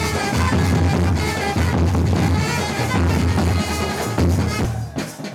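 Live Tamil karakattam dance music: large bass drums and a drum set pound a fast, steady beat under a wind instrument's melody. The music drops away about five seconds in.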